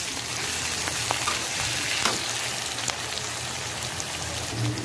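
Sliced onions sizzling in hot oil in a kadhai: a steady frying hiss with scattered small pops and crackles, as the onions are fried until they turn light brown.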